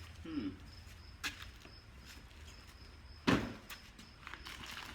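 Boxes and packaged food being handled: a few light clicks and knocks, then one loud thump a little over three seconds in. A faint steady high tone sits behind it.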